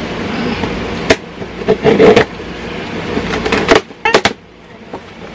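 Cardboard shipping box being opened by hand: rustling and scraping at the tape and flaps, with several sharp clicks and knocks.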